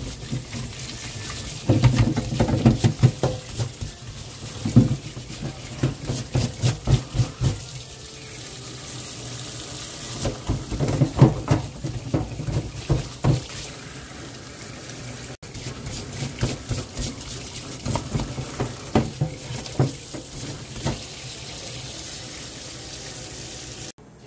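Tap water running into a stainless steel sink while a live lobster's shell is scrubbed with a bristle dish brush, the scrubbing coming in several spells of quick strokes.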